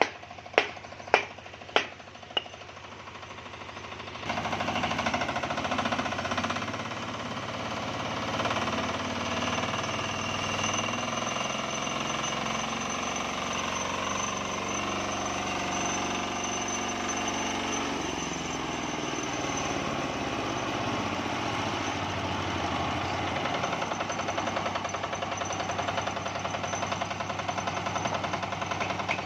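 Single-cylinder Matsumoto diesel engine driving a homemade sawmill. It gives sharp, regular knocks about twice a second, then about four seconds in runs up and keeps running at speed, its pitch shifting for a while in the middle as the load changes.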